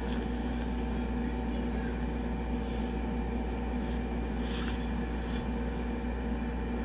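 Steady low background hum, with a few faint brief rustles about four and a half seconds in.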